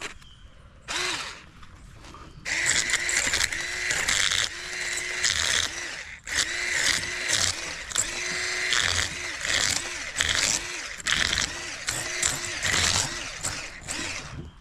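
Handheld electric fish scaler running against the scales of a large sheepshead: a steady high motor whine with a rattling, scraping rasp, the motor's pitch swelling up and down about once a second as the blade is worked over the fish. It starts with a short burst about a second in, then runs with brief dropouts from about two and a half seconds in until just before the end.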